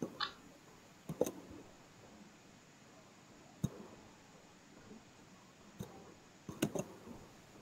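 Faint computer mouse clicks, about six or seven short sharp ones scattered through, some in quick pairs, over quiet room tone.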